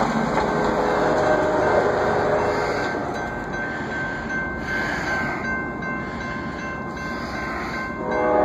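Railroad crossing bells ring steadily as the gates come down, with a car passing over the crossing at the start. About eight seconds in, the approaching CSX locomotive's multi-chime air horn starts to blow.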